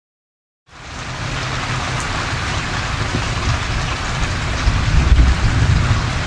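Heavy rain pouring onto wet pavement: a steady hiss that starts suddenly under a second in, with a low rumble underneath that swells about five seconds in.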